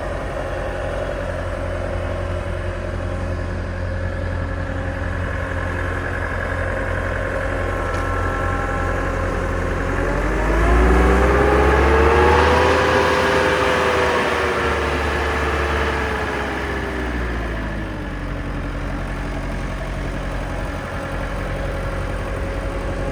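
2002 Bobcat T200 skid steer's diesel engine running steadily at idle. About ten seconds in it is revved up, held at higher revs for a few seconds, then eased back down to idle by about eighteen seconds in.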